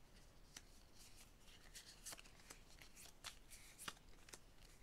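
Lenormand cards being dealt one at a time from the deck and laid down on a hard surface. Faint, with a string of soft clicks and slides of card stock.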